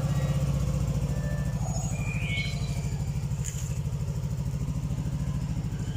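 Motorcycle engine idling steadily with an even, rapid firing pulse, with a brief high rising chirp about two seconds in.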